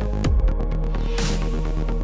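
Electronic backing music with a steady beat. A deep bass hit with a falling pitch lands about a quarter second in, and a hissing swell rises about midway.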